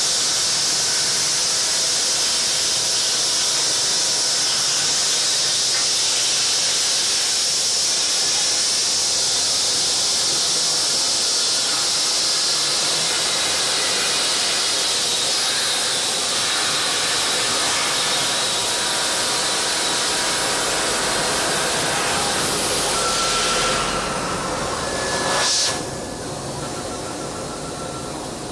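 CNC plasma cutter torch cutting metal: a steady, loud hiss of the arc and air jet. It stops near the end with a brief burst, leaving a quieter background with a faint thin whine.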